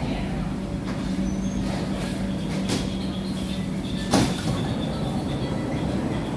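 Kawasaki–CRRC Sifang C151C metro train braking to a stop at a platform: running rumble with a steady low hum that ends about four seconds in, marked by a single sharp clunk as the train comes to rest.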